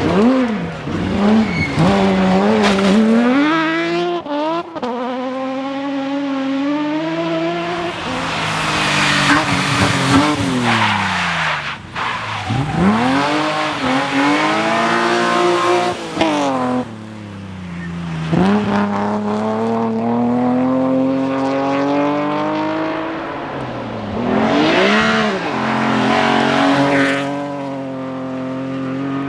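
BMW rally car engine at full throttle, its revs repeatedly climbing and dropping sharply as it shifts gears, lifts off and accelerates again through a stage.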